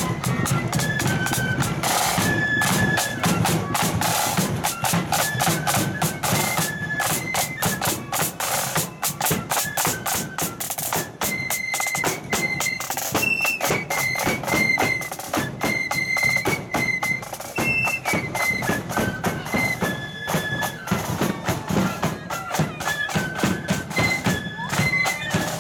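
Marching flute band playing a tune: many flutes in unison on a high melody, over continuous snare-drum beating and a large bass drum.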